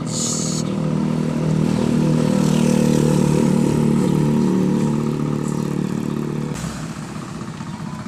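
Motorcycle engine running steadily under way, with a short hiss at the start; it drops off about six and a half seconds in as it eases off.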